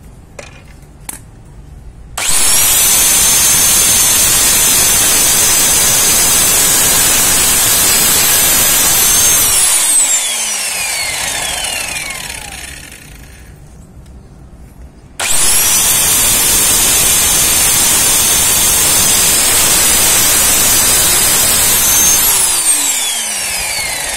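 Sliding compound miter saw cutting aluminium T-slot extrusion. The motor starts with a high whine about two seconds in, runs steadily for about seven seconds, then spins down with falling pitch. It starts again about halfway through and spins down again near the end.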